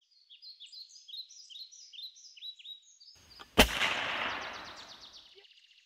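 Birds chirping in a quick series of short falling notes, then a single loud gunshot about three and a half seconds in, its echo dying away over about two seconds.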